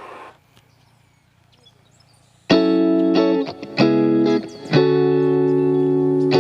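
Near silence, then instrumental music comes in about two and a half seconds in: a run of loud chords, each struck and held.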